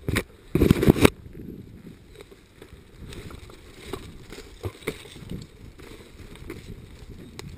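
Two loud scrapes of something rubbing against the microphone right at the start, then a low, uneven rustling with faint ticks as the player moves.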